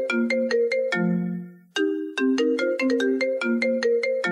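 Mobile phone ringtone announcing an incoming call: a quick melody of short notes, played twice with a brief break between.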